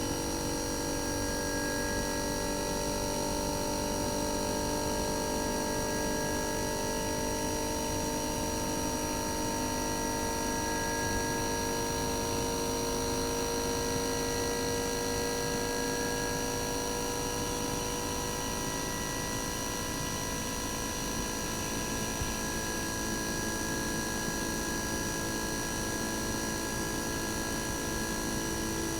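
RECHI 43W26SH single-rotary inverter compressor from a Sharp AU-J25XY air conditioner outdoor unit running uncovered: a steady hum and whine of several tones over a low rumble, its pitch drifting slowly lower.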